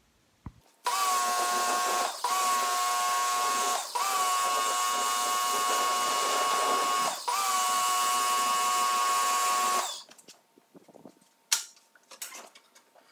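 Greenworks 1600 PSI electric pressure washer running and spraying water onto a mower: a steady motor whine with a hiss of spray. It starts about a second in, cuts out briefly three times, and stops after about nine seconds; a few sharp knocks follow near the end.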